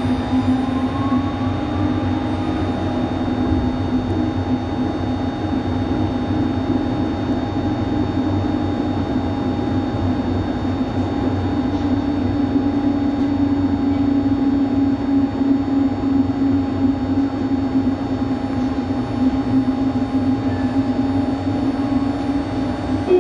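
Metro train on rubber tyres heard from inside the car while running through a tunnel: a steady rumble of running noise with a constant low hum and faint steady whines from the drive.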